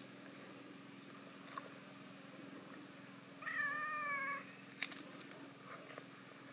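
Domestic cat meowing once, a single drawn-out meow of about a second about halfway through. A couple of sharp clicks follow shortly after.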